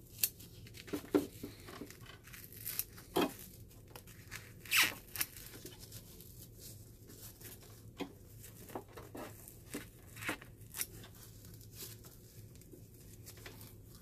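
Scissors snipping away a steam humidifier tank's overheated rubber insulator, the burnt, crumbling rubber tearing as it is cut: irregular sharp snips and crackles, a few louder ones in the first five seconds.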